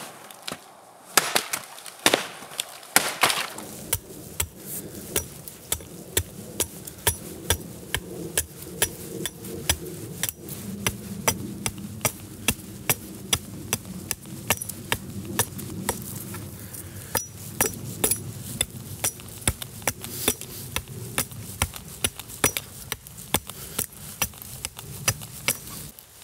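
Hand-forged Viking-style fighting axe chopping into dead wood: a few heavy chops with splintering in the first seconds, then a long run of quick, sharp strikes about two a second.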